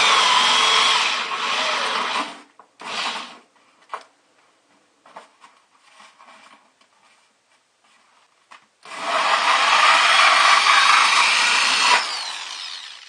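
Power drill cutting through material in spurts: a long run at the start, a short burst, some scattered clicks, then another long run of about three seconds that trails off.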